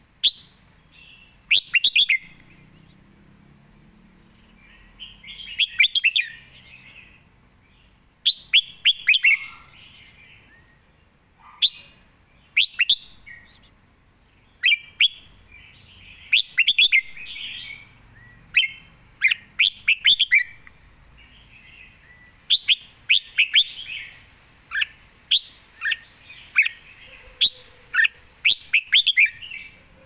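Caged red-whiskered bulbul singing: short, loud phrases of quick, sharp chirping notes, repeated with pauses of a second or two and coming more thickly in the second half.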